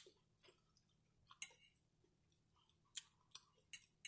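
Metal fork clicking and tapping against a plate as nachos are picked up, about six short, sharp clicks spread through an otherwise quiet stretch.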